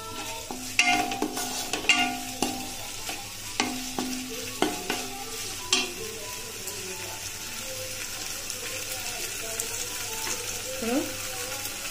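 A wooden spatula stirs sliced onions, green chillies and curry leaves frying with soy sauce and vinegar in a non-stick pan. The frying sizzles steadily under the stirring, and the spatula scrapes and knocks against the pan several times in the first six seconds, more softly after that.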